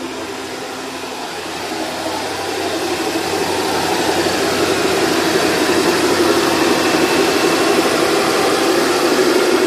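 BMW N63 twin-turbo V8 idling fast just after start-up, a steady run with an even hiss over it. It grows louder from about two seconds in as the microphone comes to the open engine bay.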